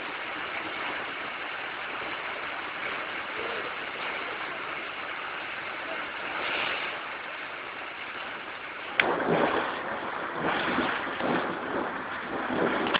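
Steady rush of muddy floodwater flowing, turning louder and more uneven from about nine seconds in.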